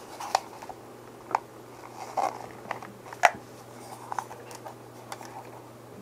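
Scattered light clicks and taps of plastic parts being handled: a Stream Deck and its plastic faceplate turned over and fitted in the hands, the loudest click about three seconds in. A faint steady low hum lies underneath.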